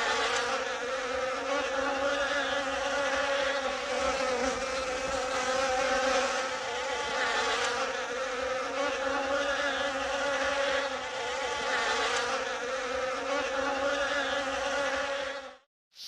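Flies buzzing in a steady drone as a horror sound effect, which cuts off abruptly near the end.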